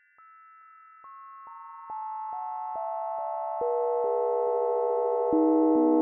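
Sustained sine-tone model of the partials of the 590-pood Sunday bell of the Novgorod Sofia belfry (cast 1839). The steady pure tones come in one at a time, about two a second, each lower than the last. They stack into the bell's held, chord-like tone, which grows louder with each added partial.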